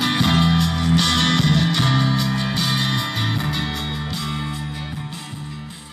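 Guitar-led music with held bass notes, getting steadily quieter over the second half.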